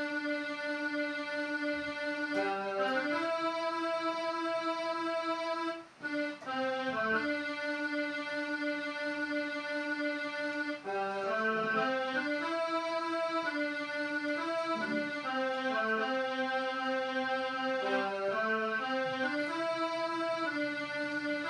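Portable electronic keyboard playing a slow melody of long held notes, with a short break about six seconds in.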